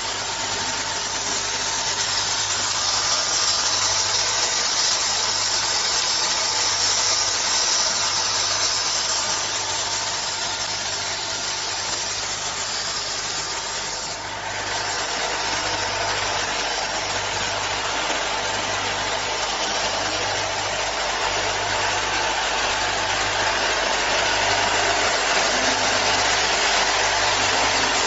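Automatic flip-top cap closing machine and its caps' bowl feeder running: a steady mechanical clatter and hiss over a low hum. The hum pulses in a regular beat a little over once a second.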